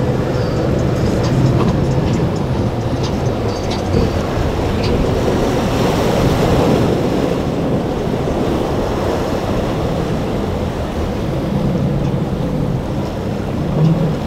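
Triple outboard engines of a center-console boat running at speed through choppy water, a steady low drone under the rush of wind on the microphone and the wash of waves and spray.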